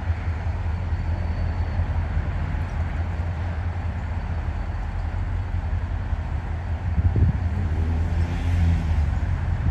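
Wheeling & Lake Erie freight train rumbling steadily past, the noise heaviest in the low range. A short wavering pitched sound rises over it about seven seconds in.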